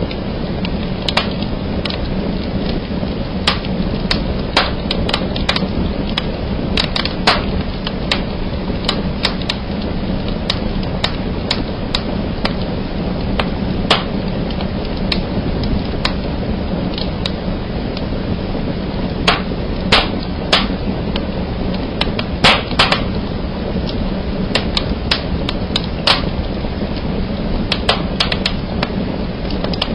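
Wood fire burning in a fireplace: a steady low rumble of flames with sharp snaps and cracks at irregular intervals, a few of them louder than the rest.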